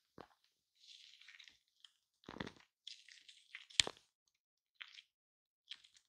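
Shaving cream being worked on a microphone: quiet, irregular short crackly noises with gaps between them, a soft hiss about a second in, and one sharper, louder crack a little before four seconds.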